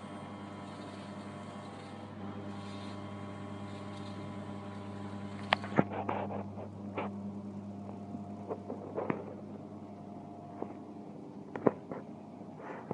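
Steady hum of glass tempering furnace machinery, several motor tones held under a hiss. About halfway through the hiss drops away, and scattered sharp clicks and knocks follow.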